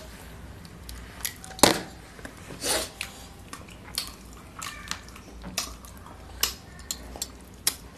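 Hand-eating sounds: fingers picking apart a cooked katla fish head in curry on a steel plate, with short wet squelches, lip smacks and finger licking, and scattered light clicks, the sharpest about one and a half seconds in.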